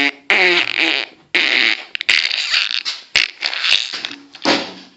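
A series of about five fart noises, each lasting roughly half a second to a second, buzzy and airy, with short gaps between them.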